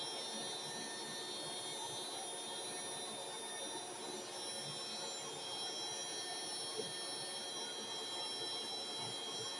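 Dirt Devil Ultra handheld vacuum running steadily with a high-pitched motor whine while sucking dust off a fan motor.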